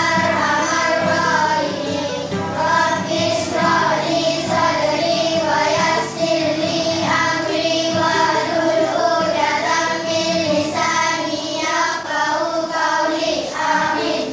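A song with children singing together over instrumental accompaniment, the sung notes held and changing every half second or so.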